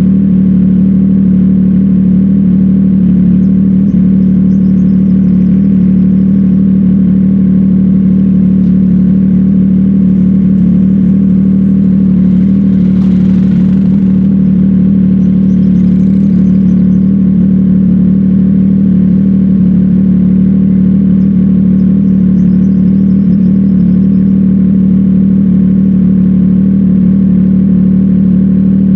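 CFMOTO 675NK's inline three-cylinder engine running through a titanium aftermarket exhaust, holding a steady, unchanging pitch and level.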